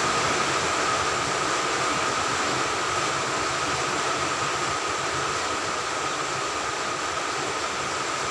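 Steady machine noise: an even hiss with a constant high-pitched whine running through it, easing slightly in level.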